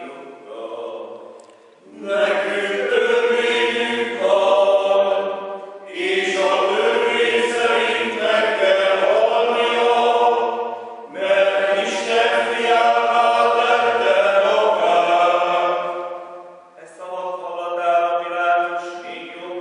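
A small group of voices chanting the Passion text in four long sung phrases, with short breaks between them.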